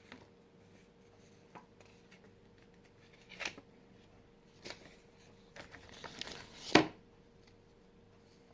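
Hands handling a package and its contents: scattered light clicks and short rustles, then a longer rustle that ends in one sharp, loud click or knock about seven seconds in.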